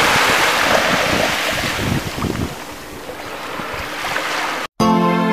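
A steady rushing noise that cuts off abruptly about four and a half seconds in; right after, music begins with held, sustained chords.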